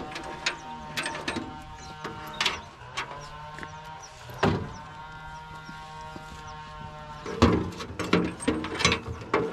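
Knocks and clatter of a wooden pole stirring pesticide mix in a plastic drum. Near the end comes a louder run of knocks as the sprayer hose is handled and fitted to the pump. A steady humming tone runs underneath.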